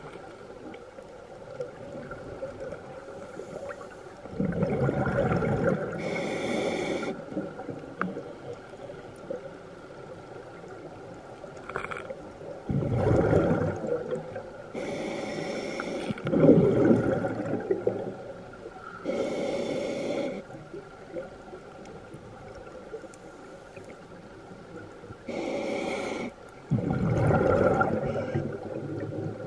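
Scuba diver breathing through a demand regulator underwater: short hissing inhales through the regulator alternate with longer, louder rumbles of exhaled bubbles, about four slow breaths.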